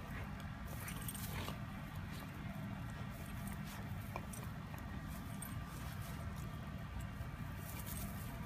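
Faint rustling and a few soft clicks from a pit bull mix chewing and rolling on grass, over a steady low rumble.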